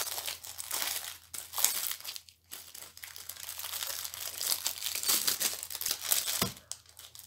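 Plastic packaging of a diamond painting kit crinkling and rustling in the hands as it is unpacked, in irregular bursts of crackle with a short pause, and a soft knock near the end.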